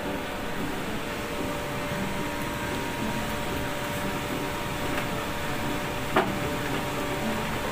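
Steady whirring noise of kitchen equipment with a faint steady tone, under soft scraping as red sorghum-flour dough is rubbed across a metal grater board over a pot of boiling water. One short knock about six seconds in.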